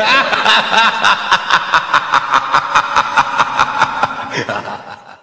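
Laughter: a long, loud run of rapid, even ha-ha bursts, about five a second, dying away near the end.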